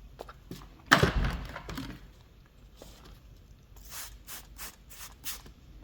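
A thump about a second in, then a trigger spray bottle spritzing soapy water onto a freshly plugged mower tire to check for leaks, several quick squirts in the second half.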